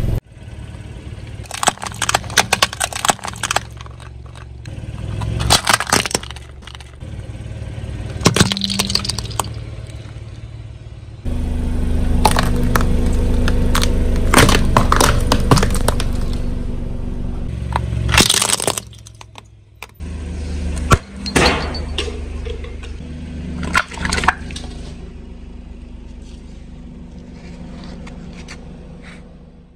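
Car tyre rolling slowly over produce and toys on concrete, crushing them in several separate rounds of sharp cracking and crunching, over the low steady running of the car's engine.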